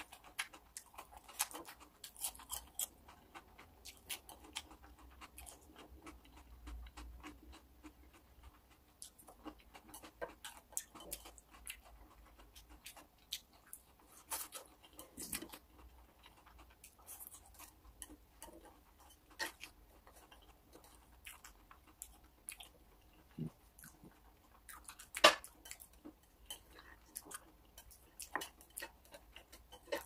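A person eating close to the microphone: chewing with many small clicks and taps scattered throughout, and one sharper clack about twenty-five seconds in.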